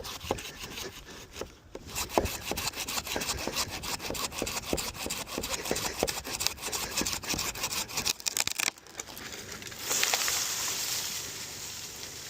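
Hand saw cutting through a tree top in quick back-and-forth strokes, no engine. The strokes stop about eight seconds in, and about two seconds later comes a rushing rustle as the cut top falls and catches in the branches.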